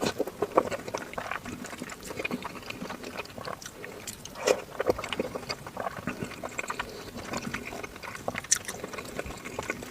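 A person eating Kayseri yağlama, a flatbread layered with minced meat and yogurt, close to the microphone: chewing with irregular short mouth clicks, a few sharper ones about halfway and near the end.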